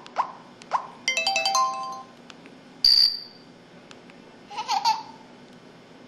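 MS100 mobile phone playing its built-in short effect sounds in turn: two quick plops, a fast run of stepped electronic beeps about a second in, a single high chime near the middle, then a short warbling blip.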